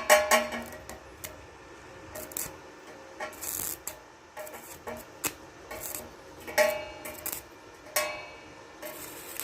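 Stick-welding arc from an INGCO 350A inverter welder set low at 50 amps, the rod scratched and struck on steel: irregular short crackles and sputters, with a longer hiss about three and a half seconds in.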